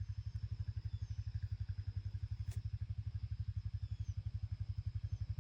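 An engine idling with a steady, even low throb, about a dozen pulses a second, with a single faint click about two and a half seconds in.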